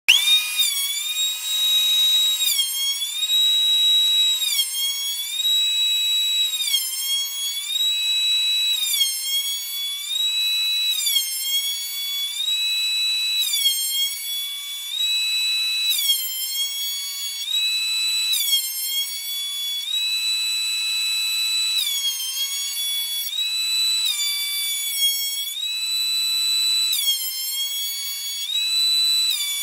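Background music: a bright, high electronic tone that steps between two pitches about once a second in a regular repeating pattern.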